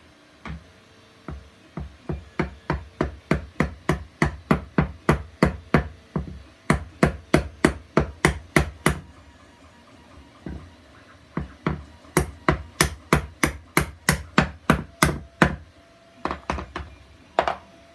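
Club hammer striking the top of an upright wooden block again and again, about three blows a second, to tap the square pins of 3D-printed puzzle parts into their square holes. The blows come in two long runs with a short pause between them, then a few more near the end.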